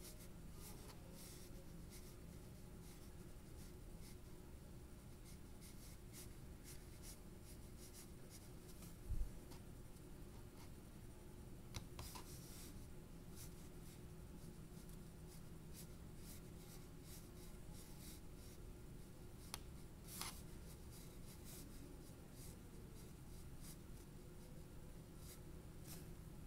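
Faint, short strokes of a fine paintbrush laying paint onto paper, with a single low thud about nine seconds in.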